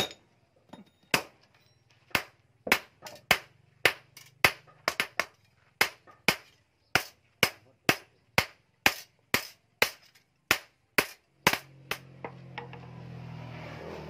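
Hammer blows on a rebar sword blade being forged on a steel post anvil: sharp metallic strikes, about two to three a second, sometimes in quick pairs. The strikes stop about 12 seconds in and a steady whirring noise with a low hum takes over.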